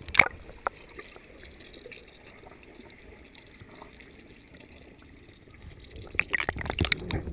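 Muffled underwater sound of a swimming pool picked up by a submerged camera: a low steady rumble of moving water, with a sharp knock just after the start and a cluster of knocks and splashes near the end.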